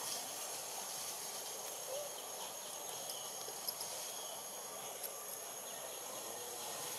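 Steady outdoor ambience of insects, a high thin buzzing drone with no break, with a few faint clicks about halfway through.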